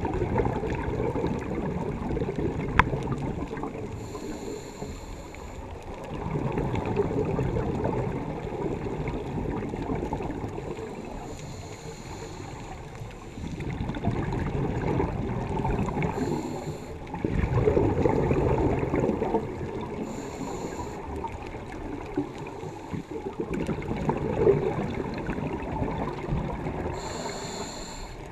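A scuba diver breathing through a regulator: short hissing inhalations and longer bubbling exhalations, several breaths a few seconds apart.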